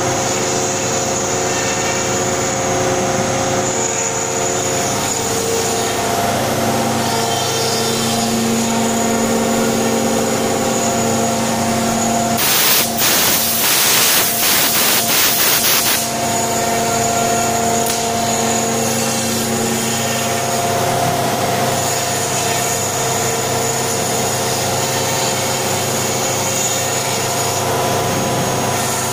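CNC router spindle running and its bit milling grooves into a solid wood door panel: steady machine noise with several held tones. About halfway through, a louder, harsher stretch lasts some three seconds.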